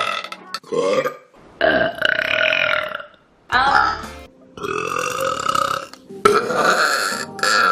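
A string of loud human burps, about six in a row. Each lasts roughly half a second to a second and a half, with short breaks between them.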